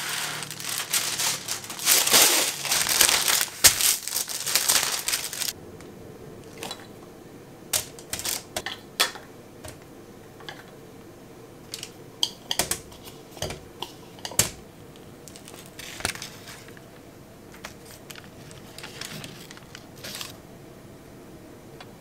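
A sheet of parchment cooking paper is pulled out of its box and torn off, crinkling for about five seconds. Then come scattered light clicks and taps as food is lifted out of a glass bowl with chopsticks and set down on the paper.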